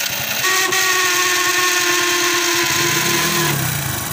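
Electric starter (self-start) motor of a Hero HF Deluxe motorcycle cranking with a harsh grinding "kachar kachar" noise, cutting out about three and a half seconds in. The mechanic puts the noise down to a dry, sticking rotor that needs grease, or sometimes a jammed bearing inside.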